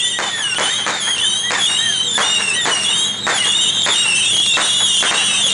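Fireworks going off: a rapid, irregular string of bangs and crackles. Over it runs a steady, wavering high-pitched whistle.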